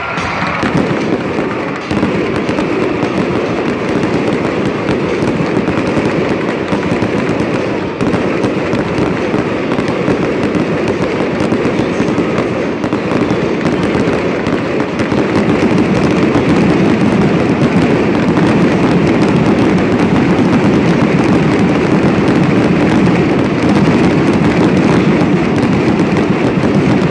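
Fireworks display: a continuous, dense barrage of shell launches, bangs and crackling, growing a little louder and denser from about halfway through.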